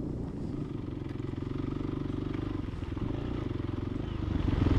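Dirt motorcycle's engine running steadily while riding, getting louder about four seconds in.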